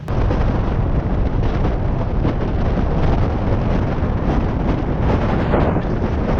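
Strong wind blasting across the microphone: a loud, constant rumbling buffet that starts abruptly.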